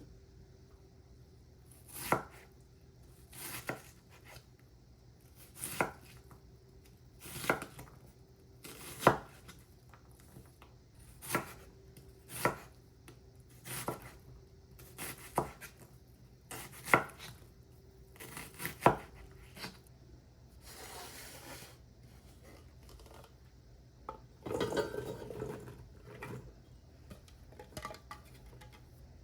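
A knife cutting vegetables on a cutting board in slow, single cuts, about one every second and a half, followed near the end by softer scraping and rustling of the cut pieces.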